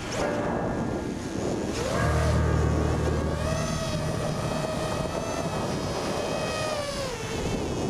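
FPV racing quadcopter's electric motors whining, the pitch rising and falling as the throttle changes.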